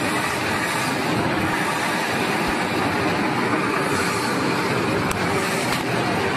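Green-and-white Mercedes police vans driving past close by: a steady rumble of engines and tyres on the road.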